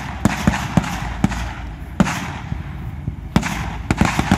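Scattered blank gunfire from a WWII battle reenactment: about nine sharp cracks at irregular intervals, bunched near the start and again near the end, over a steady low rumble.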